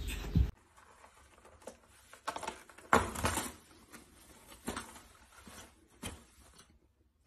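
Black kitten batting and clawing at hanging toilet paper: scattered short paper rustles and scratches, the loudest about three seconds in. A steady low hum cuts off about half a second in.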